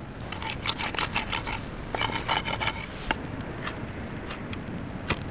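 Split firewood knocking and scraping against a thin stainless-steel fire pit as the logs are set in place. A quick run of clatters fills the first three seconds, followed by a few single clicks.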